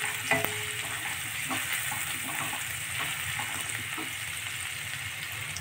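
Chopped onions sizzling steadily in hot oil in a stainless-steel kadhai, with a few light scrapes of a wooden spatula stirring them against the pan.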